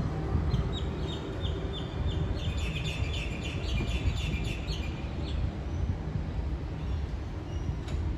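A small bird chirping in a quick series of short high calls for about five seconds, busiest in the middle, over the steady low rumble of a Sydney Trains H set (Oscar) electric train at the platform.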